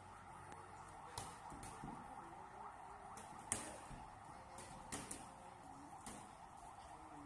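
Faint boxing-glove punches landing during sparring: about six short, irregular smacks, the loudest about three and a half seconds in, over a steady background hum.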